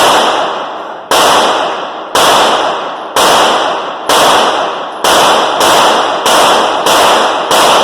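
Gunshots fired in quick succession, about ten shots roughly a second apart and coming faster near the end, each loud crack trailing off in a ringing echo.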